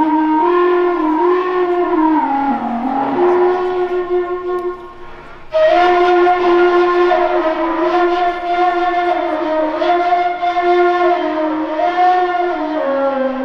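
Unaccompanied Maulid devotional chanting by male voices through a microphone: long held notes that waver slowly in pitch. The sound dips about four and a half seconds in, and a louder voice then takes up the line.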